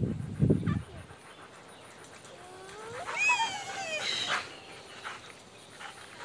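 A young child's high-pitched squeal, about two seconds long, rising in pitch and then falling away. It follows a brief low rumble in the first second.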